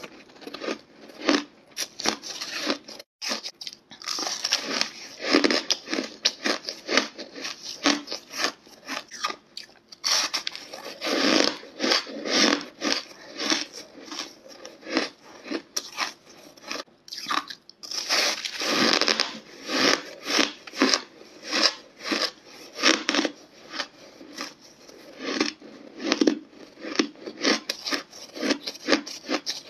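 A person biting and chewing hard, crunchy ice: a dense run of crunches, broken by a few brief pauses between bites.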